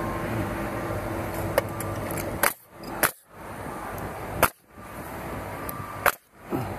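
Pneumatic coil nailer firing nails into lap siding: four sharp shots, irregularly spaced, over a steady hum.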